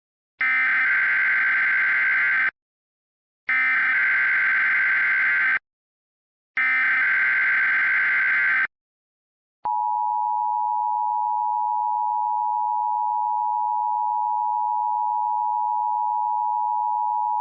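Emergency Alert System SAME header: three identical two-second bursts of warbling data tones, then the two-tone EAS attention signal (853 and 960 Hz) held steady for about eight seconds. Together they announce an emergency alert message.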